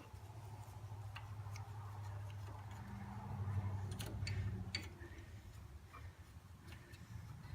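A few light, scattered clicks of small carburetor linkage parts being handled, over a low steady hum.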